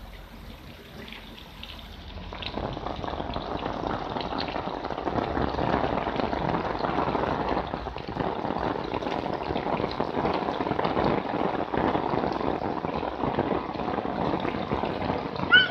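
Rain falling steadily, an even hiss that grows louder about two seconds in. Near the end comes a brief high-pitched squeak.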